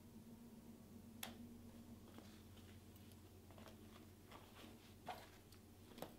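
Faint handling noise from a canvas-and-leather shoulder bag as it is opened and rummaged through: scattered small clicks and rustles, with a sharp click about a second in and two more near the end, over a low steady room hum.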